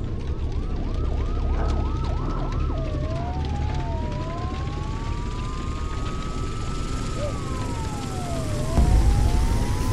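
Emergency vehicle siren: several quick yelping sweeps, then slow rising and falling wails. Under it a low rumble grows louder near the end.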